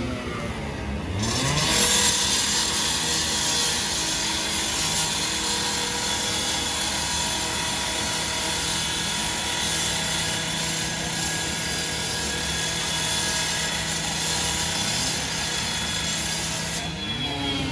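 Firefighters' power saw cutting into the steel body of a garbage truck, a loud, steady, harsh whine that starts about a second in and stops shortly before the end.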